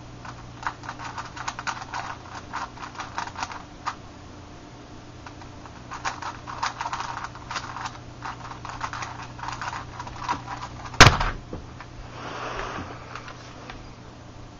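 Plastic Meffert's megaminx being turned fast, a rapid clatter of layer clicks in two flurries with a short pause between. About eleven seconds in comes a single loud slap as the hands come down on the Stackmat timer pads to stop the solve.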